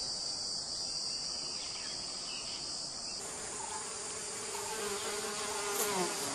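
Steady, high-pitched chorus of insects chirping in forest ambience.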